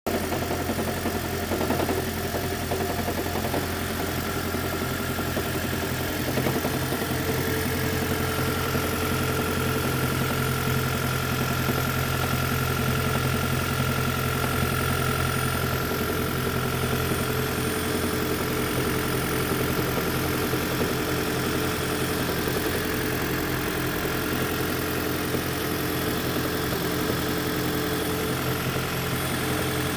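2010 Toyota Prius's 1.8-litre four-cylinder petrol engine idling steadily with an even hum.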